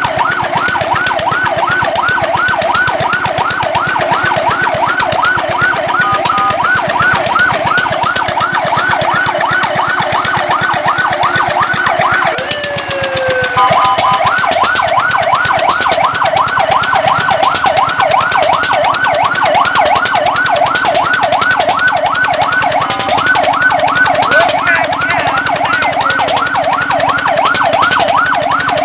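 Fire truck siren sounding a fast yelp, its pitch rising and falling several times a second. About halfway through it breaks off for about a second with a short falling tone, then the yelp resumes.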